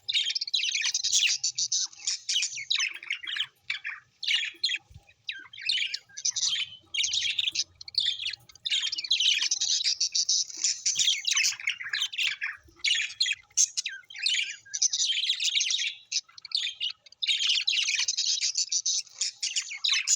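Birds chirping and squawking in a dense, almost unbroken chatter of rapid high calls, with a few brief pauses.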